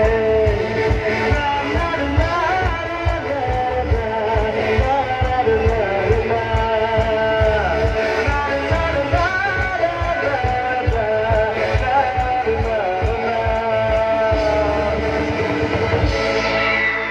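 Live band music over a PA system: a male vocalist singing into a microphone with electric guitar, keyboards and a steady drum beat. Near the end the drum beat stops.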